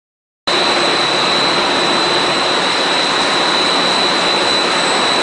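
PP/PS plastic sheet extrusion line running: a loud, steady machine noise with a high, steady whine over it, cutting in suddenly about half a second in.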